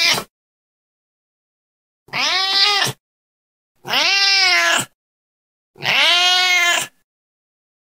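Domestic cat meowing: the tail of one call, then three meows about two seconds apart. Each lasts about a second and rises and then falls in pitch.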